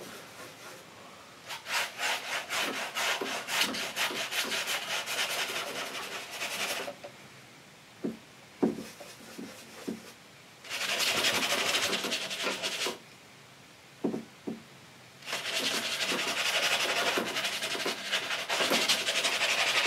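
Bristle brush scrubbing oil paint onto a stretched canvas: long stretches of rapid, scratchy back-and-forth strokes with quieter pauses between, and a few soft knocks in the pauses.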